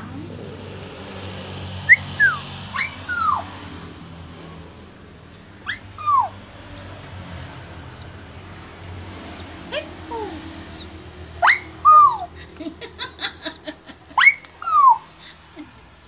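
White-browed crakes calling: scattered short, sharply falling whistled notes, several in quick succession after about eleven seconds, with a rapid run of ticking notes around thirteen seconds. A faint low hum runs underneath.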